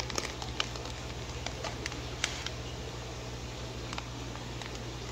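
A plastic fish bag is handled against aquarium glass, giving scattered short clicks and crinkles over a steady low hum of running equipment.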